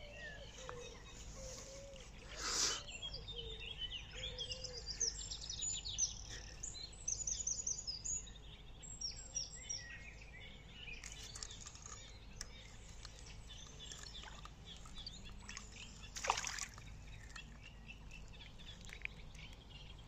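Small birds chirping and trilling, faint, over a low outdoor rumble, with two short bursts of noise about two and a half and sixteen seconds in.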